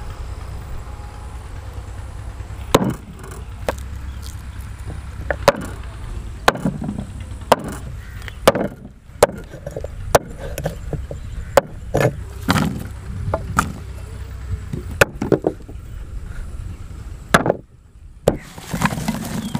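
A large steel cleaver chopping firm raw green mangoes on a wooden chopping board: more than a dozen sharp, irregularly spaced chops, starting about three seconds in, over a steady low rumble.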